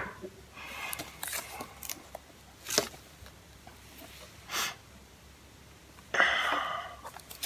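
Soft handling noises from a cellophane-wrapped reel-to-reel tape box: a sharp click at the start, then scattered light rustles and taps. A few short sniffs come in between, the longest breathy one about six seconds in, from a person with a head cold.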